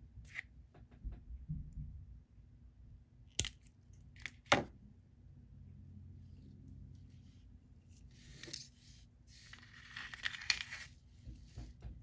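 Hands handling and pulling nylon fishing line while tying a knot. Two sharp clicks about a second apart come near the middle, then rasping rustles in the last third as the line is drawn and rubbed between the fingers.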